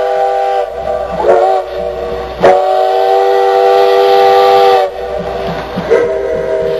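Steam locomotive whistles sounding a chord of several tones over a hiss of steam. A long blast breaks off just over half a second in, two short blasts follow, then a long blast of about two and a half seconds, and another long blast starts near the end.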